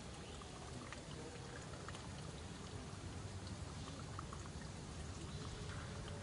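Steady outdoor rushing noise with many faint scattered ticks, of the kind made by light rain or running water; no monkey calls.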